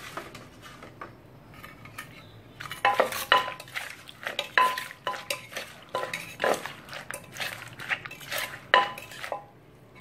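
Wooden pestle pounding and a metal spoon clinking and scraping in a clay som tam mortar as green papaya strips, tomatoes and chillies are pounded and tossed. Only light taps at first, then from about three seconds in, quick uneven strikes about two a second, many with a short metallic ring, stopping shortly before the end.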